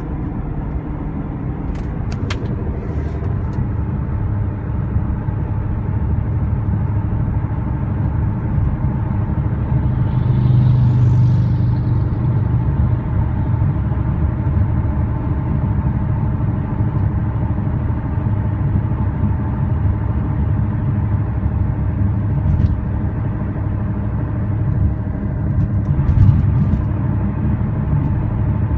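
Inside the cabin of a 2011 BMW E93 M3 cruising: a steady low drone with a hum, rising in level over the first several seconds and then holding. It is a noise that gets louder with road speed, which the owner cannot place; the tyres are in decent shape and the wheel bearings checked okay.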